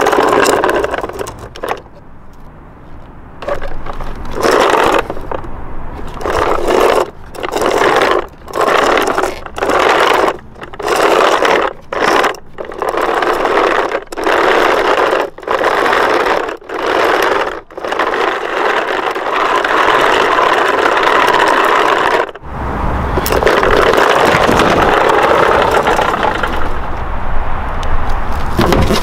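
Plastic toy truck's wheels rolling and scraping back and forth on concrete in repeated strokes of about a second each, followed near the end by a steady low noise.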